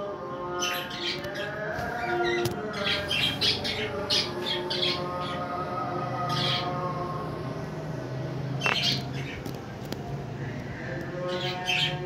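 Cockatiels giving short, sharp chirps and squawks, in a busy run over the first few seconds and then in single calls spaced a few seconds apart.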